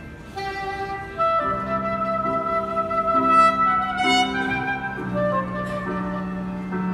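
Live jazz band playing: a soprano saxophone holds long melody notes over keyboard chords and electric bass. The band grows louder about a second in.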